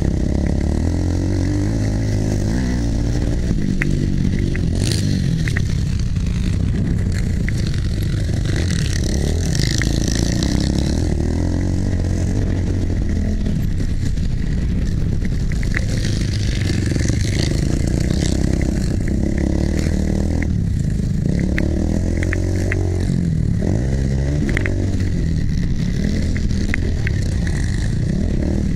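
Motocross bike engine heard from on board at race pace, revving up and falling off again and again as it works through the gears. Wind noise and scattered clicks and rattles run alongside.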